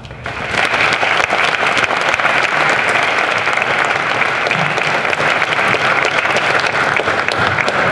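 Audience applauding: many hands clapping, rising quickly just after the start and holding steady.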